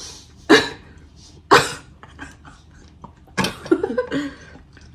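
A person coughing: two sharp single coughs about a second apart, then a short run of smaller coughs around three and a half seconds in.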